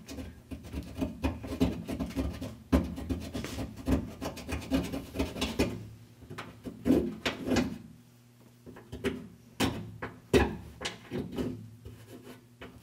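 A coin scraping old tar and sound-deadener residue off the truck's steel cab floor pan, in quick irregular rasping strokes that thin out past the middle, over a steady low hum.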